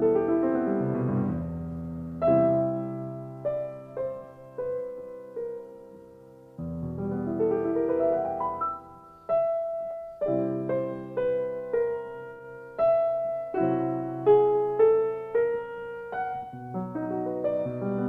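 Background solo piano music: a slow piece of struck notes and chords, each left to ring and fade.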